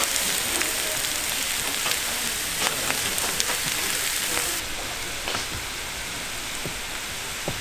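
Pork offal sizzling on a hot iron griddle: a dense, steady hiss with scattered clicks and pops. It turns quieter and duller about four and a half seconds in.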